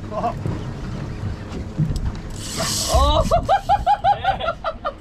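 Fishing reel drag buzzing briefly as a fish strips line, over the low rumble of the boat and wind. About three seconds in, a man shouts 'Oh!' and a quick string of excited cries follows.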